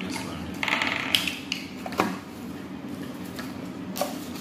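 Handling noise from unboxing: a short rustle of cable and packaging, then a few sharp clicks and taps as the earphones and the phone's box are handled.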